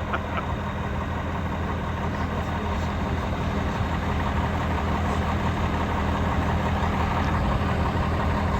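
Heavy engine idling steadily, a constant low hum that neither revs up nor dies down.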